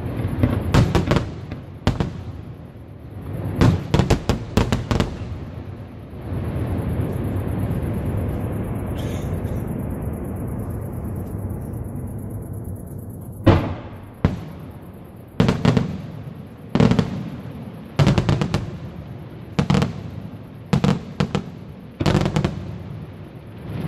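Aerial firework shells bursting: clusters of sharp bangs and crackling in the first few seconds, then a steady rumbling hiss that grows duller for about seven seconds, then a run of single loud reports roughly one to two seconds apart.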